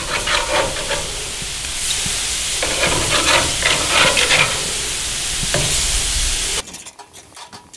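Marinated pork neck steaks sizzling on the hot grate of a gas grill while they are turned over with metal tongs. The sizzle cuts off abruptly near the end.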